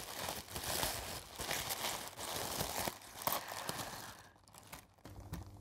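Packaging crinkling and tearing under the hands as a scented candle is unwrapped, in irregular handling noises that die down about four seconds in.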